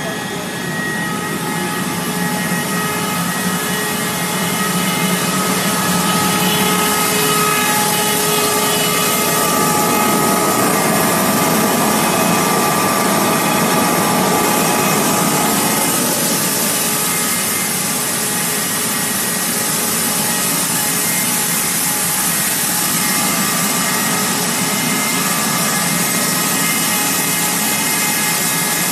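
PET pelletizing extrusion line running: a steady loud mechanical din with a hiss and several steady whining tones from its motors.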